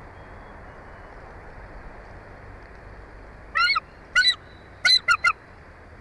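Bald eagle calling: five high, chirping notes about three and a half seconds in, two spaced apart and then three in quick succession, over a steady background hiss.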